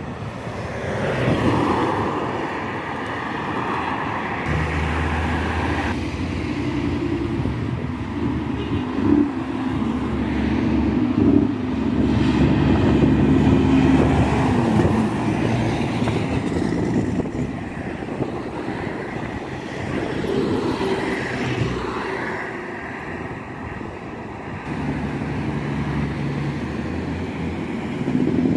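Highway traffic passing: cars going by, and a diesel tractor-trailer hauling a shipping container passes close around the middle with a low, steady engine drone that swells and fades.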